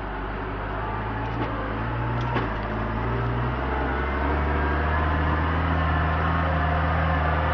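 Case MX110 tractor's diesel engine running steadily, with a few light clicks in the first couple of seconds; about four seconds in, its note drops and grows louder, as under heavier load.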